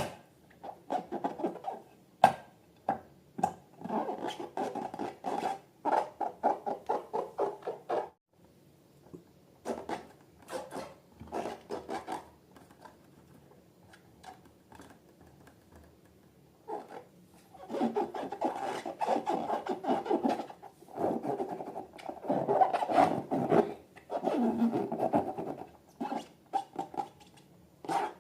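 Slime being mixed and worked by hand: irregular rubbing, scratching and squishing with small clicks, in two stretches with a quieter pause in the middle.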